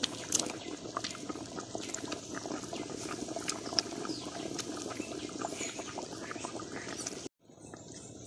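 Big pot of mutton gravy at a hard boil, bubbling and popping steadily; the sound cuts off abruptly about seven seconds in.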